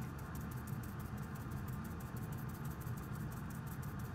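Stiff-bristled cleaning brush scrubbing flux residue off a graphics-card circuit board, a fast run of short scratchy strokes over a steady low hum.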